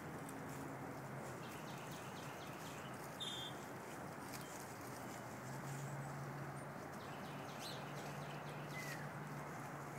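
Outdoor ambience: a steady hiss with a low hum under it, scattered light ticks, a short high chirp about three seconds in and a small falling whistle near the end. No peacock calls.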